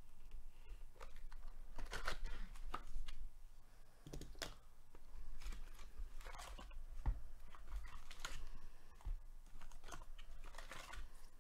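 A cardboard box of trading card packs being torn open and handled, with foil card packs rustling and crinkling as they are pulled out: irregular clicks, tears and scrapes.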